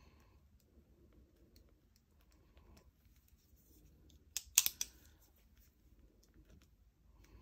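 Pen tip scratching softly on planner paper, then about four and a half seconds in a quick run of sharp clicks as a FriXion Ball 3 Metal multi-pen is clicked to switch ink colour.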